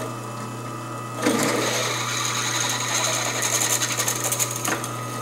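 Drill press motor humming steadily at low speed. About a second in, a freshly sharpened twist drill bit bites into cold-rolled steel with cutting oil, giving a loud scraping cut with a high whine and rapid ticking that eases off near the end. The bit is cutting easily, 'like a hot knife and butter'.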